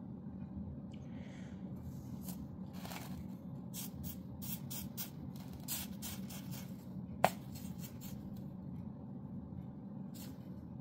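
Tip of a rechargeable pen-style soldering iron being scraped and wiped on the cleaning sponge in its plastic case: a run of short scratchy rubs, with one sharp click about seven seconds in, over a faint steady hum.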